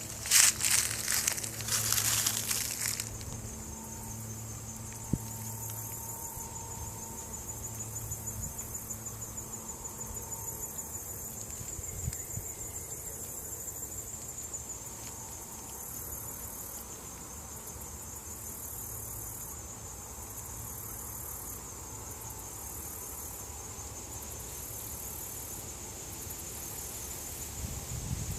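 Insects trilling in a steady high chorus. In the first few seconds there are several loud crunching rustles, like dry leaves.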